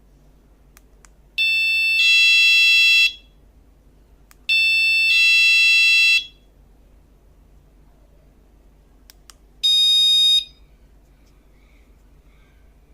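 SF18C wireless magnetic door alarm sounding loud, piercing electronic tones: twice a two-note tone about a second and a half long, then one shorter single-note beep near the end. Faint clicks come just before each.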